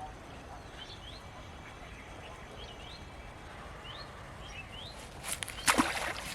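Small birds chirping, short rising calls repeated every second or so over a steady outdoor background. About five seconds in, a loud burst of noise lasting under a second.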